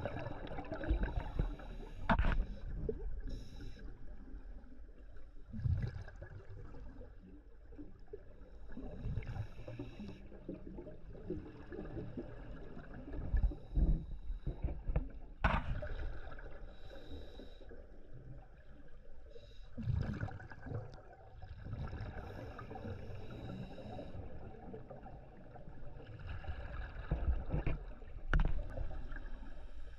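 Scuba diver breathing through a regulator underwater: bursts of low rumbling exhaust bubbles every few seconds, with hiss between them and a few sharp clicks.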